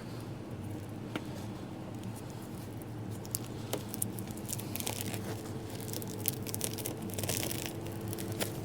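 Plastic protective film being peeled off and crumpled, crinkling and crackling from about three seconds in, over a steady low hum.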